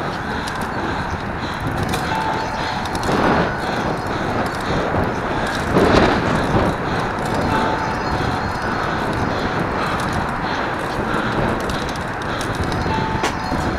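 Steady rushing wind and tyre noise while riding a road bicycle, with brief louder swells about three and six seconds in.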